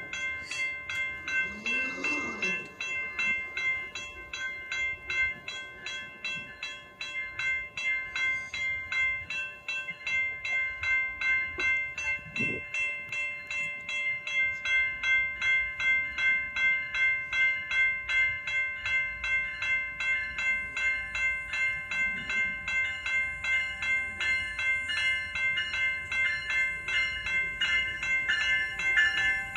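Railway level-crossing warning bell ringing in an even, fast repeating pattern, while an approaching GO commuter train's rumble grows louder from about halfway in.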